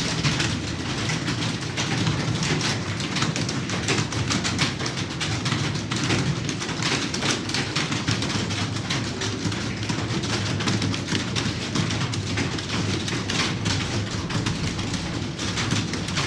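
Rapid, continuous typing on a computer keyboard, a dense run of quick key clicks with no pause.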